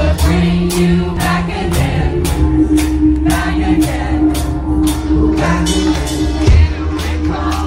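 Live rock band playing loud: a male singer's vocals over electric guitar and bass, with a steady drum beat of about two hits a second.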